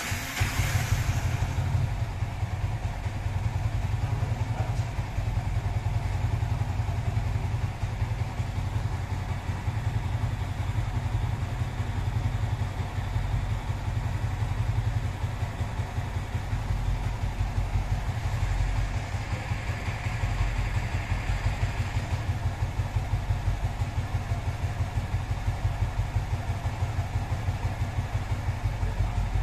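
Yamaha R15 V3's single-cylinder engine, fitted with a Noken S2 camshaft and a Juken 5 Plus ECU, idling steadily at about 1,400 rpm with the bike on a dyno and the rear wheel not turning.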